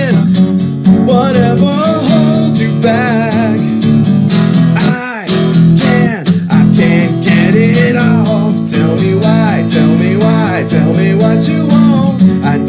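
A song played live: strummed acoustic guitar with a singing voice over it.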